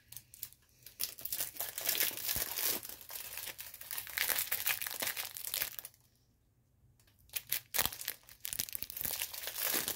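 Clear plastic packaging of a diamond painting kit being crinkled and opened by hand, a dense crackle of many small clicks with a pause of about a second a little after halfway.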